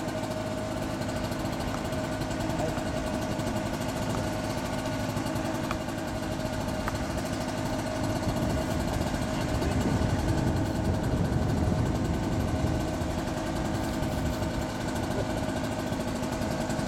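An engine running steadily at a low, even speed, with a constant hum that swells a little in the middle.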